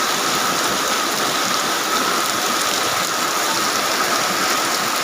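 Heavy rain falling steadily, a dense even hiss with countless small drop ticks on a surface.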